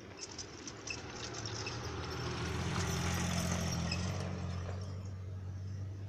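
Low engine hum with a broad rushing noise that swells to its loudest about halfway through and eases off near the end.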